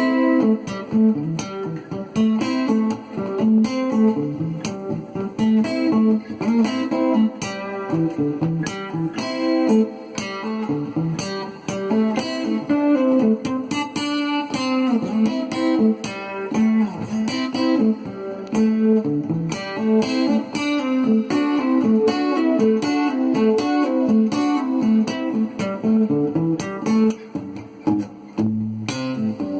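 Cort GA5F-MD acoustic-electric guitar played through its Fishman pickup: a melody of single notes picked in quick succession, with a low bass note near the end.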